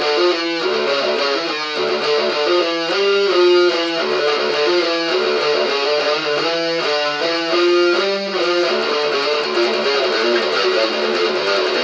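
Electric guitar played as a riff of picked notes and chords that change pitch every fraction of a second.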